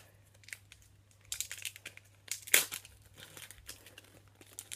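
Foil wrapper of a Pokémon card booster pack being torn open and crinkled. Scattered crackles begin about a second in, the loudest a sharp crackle about halfway through.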